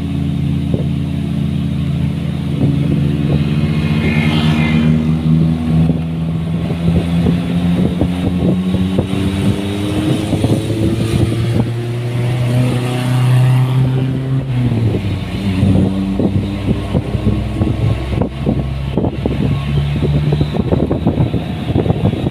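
A vehicle engine running under way, its pitch rising slowly for about fourteen seconds, then dropping suddenly and running lower. Wind buffets the microphone throughout.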